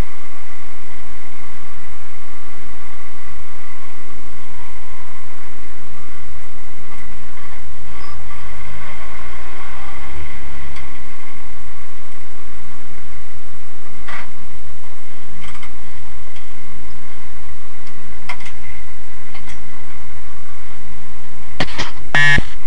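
Turbocharged 1.8-litre 20-valve four-cylinder of an Audi quattro drag car running steadily, without hard revving, heard from inside the cabin through an overloaded microphone. A few sharp knocks near the end as the camera is handled.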